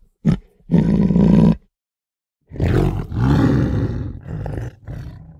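Tiger roaring in several calls: a short one and a roar of about a second near the start, then after a pause a longer run of roars that trails off near the end.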